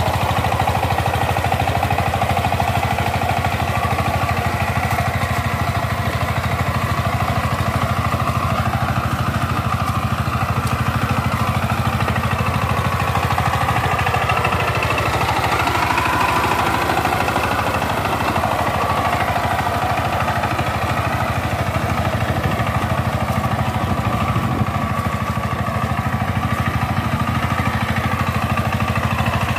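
Single-cylinder diesel engine of a Dolphin 20 two-wheel power tiller running steadily under load as it drives the cage wheels through a flooded paddy field, a fast even chug.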